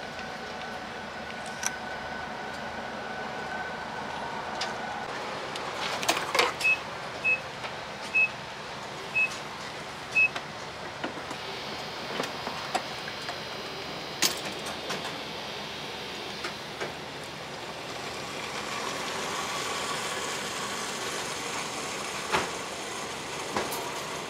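Gas pump beeping five short times at one pitch, then gasoline rushing from the pump nozzle into a plastic gas can, a hiss that swells partway through, over a steady background hum.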